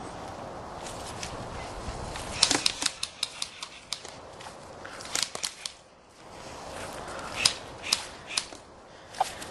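Airsoft electric guns firing: a quick string of about eight sharp shots about two and a half seconds in, a short burst around five seconds, then single shots spaced out near the end. Steady wind rumbles on the microphone underneath.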